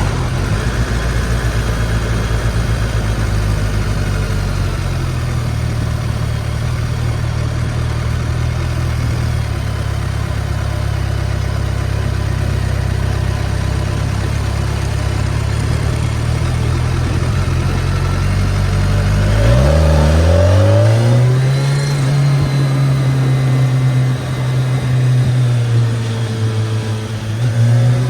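BMW K1300S motorcycle's inline-four engine running at low, steady revs. About two-thirds of the way in it accelerates with a sharp rise in pitch and holds higher revs, dipping briefly near the end and rising again.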